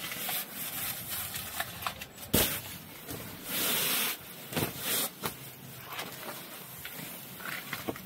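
Breaths blown into the valve of a sleeping pad: several bursts of rushing air, the longest about three and a half seconds in, with rustling of the pad and a sharp knock about two and a half seconds in.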